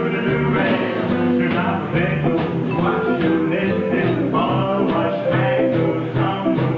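Live band playing a song, with guitar and a bass line stepping from note to note.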